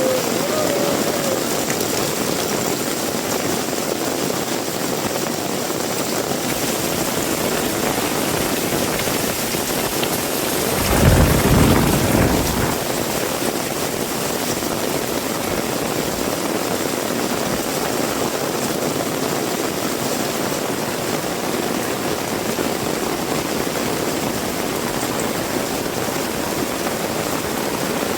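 Heavy rain falling steadily, an even hiss. About eleven seconds in, a low rumble swells for a second or two and fades back into the rain.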